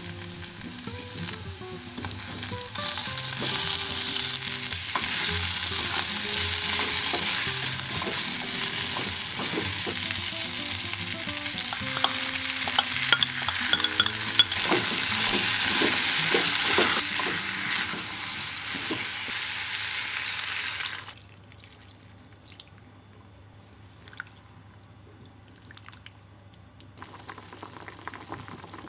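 Garlic and then potatoes, onion and seasoning paste sizzling in oil in an earthenware pot, stirred with a silicone spatula. The sizzling stops abruptly about two-thirds of the way through, leaving a few light clicks, and a faint simmering returns near the end.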